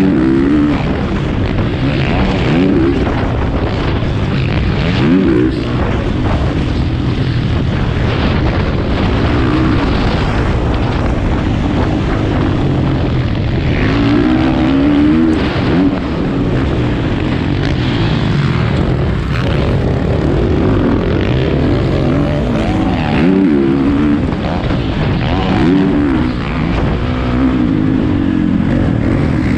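Motocross dirt bike engine, heard up close from the riding bike, revving up and dropping back again and again as the rider accelerates and shifts along the track, over a steady rush of noise.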